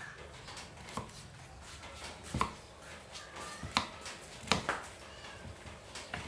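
Kitchen knife cutting a peeled vegetable into chunks on a wooden chopping block: about five sharp knocks of the blade hitting the board, a second or so apart, the loudest two just past the middle.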